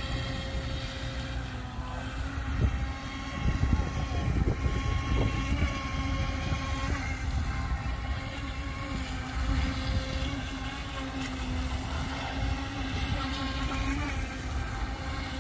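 Radio-controlled model speedboat running across a pond: a steady motor whine that wavers slightly in pitch as the boat speeds and turns, with wind rumbling on the microphone.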